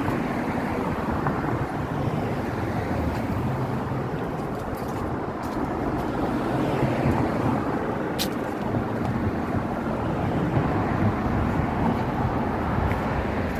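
Steady street traffic noise from passing cars, with wind rumbling on the microphone.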